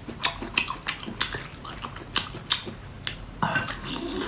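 Sharp, irregular clicks and clinks of hard sea-snail shell and utensils knocking against each other and the dish, about a dozen in all.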